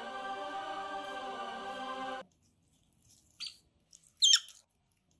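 Background music with sustained chords cuts off about two seconds in. After a short pause, Asian small-clawed otters give two brief, high-pitched squeaks; the second, near the end, is louder and stepped in pitch.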